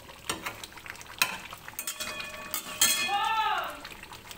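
Metal spoon stirring and scraping in a pot of chicken curry, with several sharp clinks against the pot as the curry sizzles. About three seconds in there is a short squeak that rises and falls in pitch.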